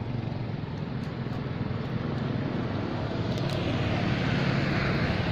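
Road traffic: a steady low engine hum, with a louder rushing noise building from about three seconds in as a vehicle passes.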